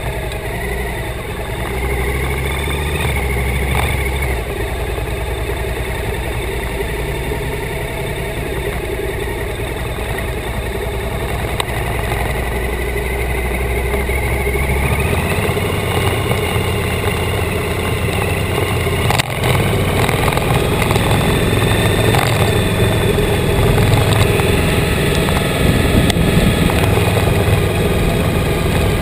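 Motorcycle engine running as the bike pulls away and rides along at low speed, growing slightly louder, with one sharp click partway through.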